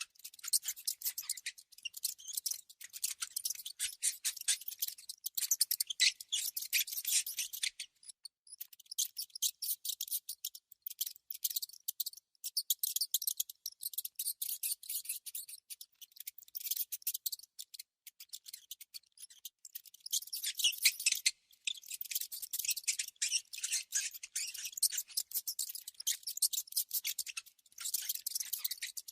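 Bouts of rapid, crisp high-pitched clicking and scratching that stop and start every few seconds.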